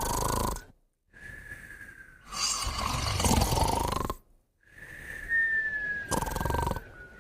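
A sleeping puppy and a second sleeper snoring and whistling together. A thin, slightly falling nasal whistle alternates with a rough snore in a cycle that repeats roughly every three seconds.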